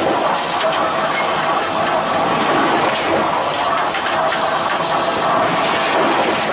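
Steel ball roll-forging mill running as it rolls red-hot steel balls, a steady loud mechanical noise with hiss and faint rattling.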